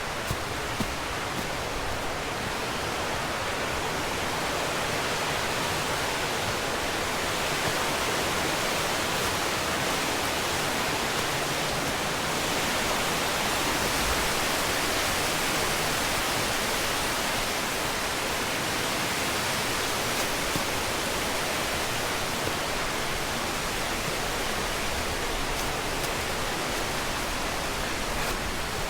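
Mountain creek rushing over rocks: a steady, even rush of water that swells slightly in the middle.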